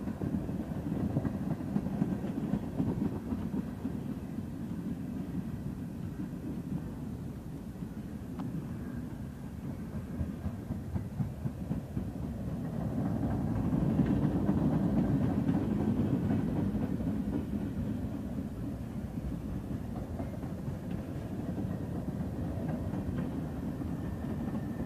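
Freight cars of a passing Union Pacific train rolling by: a steady rumble of steel wheels on the rails, swelling louder for a few seconds about halfway through.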